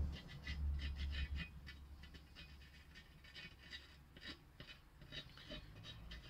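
Glue brush scratching and dabbing rubber cement onto the metal frame of a 6x9 car speaker, a quick run of short scratchy strokes, with a low handling rumble in the first second or so.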